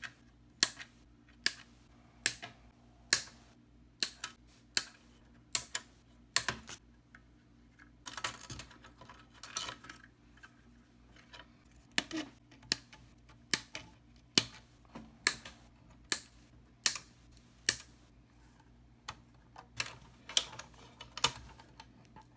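Diagonal side cutters snipping through old transformer lead wires one after another: a crisp snap about every second, with a stretch of handling rustle about eight seconds in.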